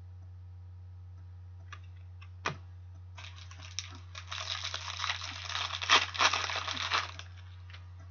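Trading cards handled and shuffled at a table: a single tap about two and a half seconds in, then a few seconds of rustling, crinkling handling that stops just after seven seconds.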